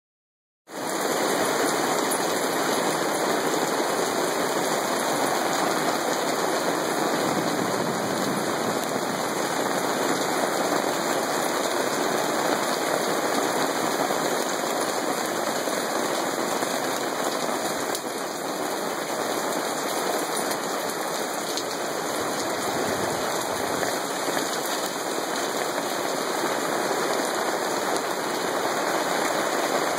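Hailstorm: hail falling hard, a dense, steady patter of hailstones hitting the ground.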